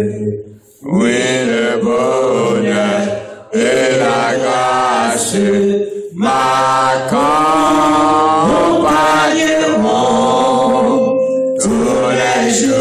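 A man singing a slow French hymn into a microphone through the church sound system, in long drawn-out phrases with short breaks between them.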